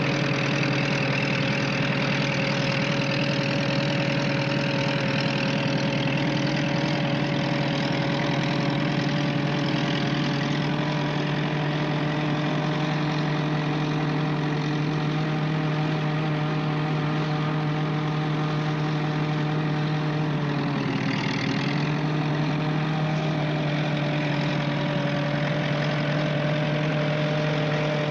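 Tank engine idling steadily, its pitch dipping briefly and recovering about twenty seconds in.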